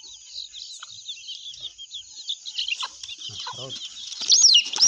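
A brood of young desi chicks peeping, many short high chirps at once. About four seconds in, they rise to loud, repeated distress peeps. A few lower clucks come midway, from the mother hen.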